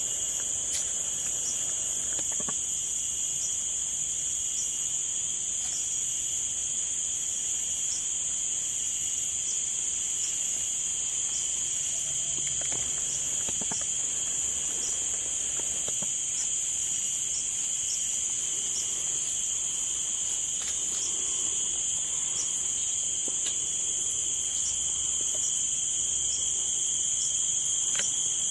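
Dense, steady insect chorus of several shrill high-pitched layers sounding at once, with a faint regular pulse a little faster than once a second.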